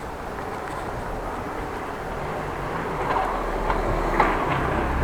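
Steady rolling noise of a bicycle being ridden along a street: tyre and wind noise with a few rattling clicks, growing a little louder toward the end.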